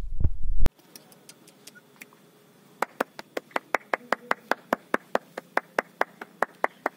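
A loud low rumble that cuts off abruptly under a second in, then, from about three seconds in, an even run of sharp clicks, about five a second.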